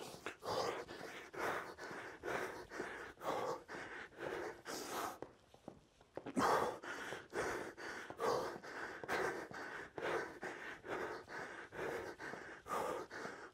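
A man breathing hard and fast while doing mountain climbers: short, sharp breaths about two to three a second, with a brief pause about five and a half seconds in.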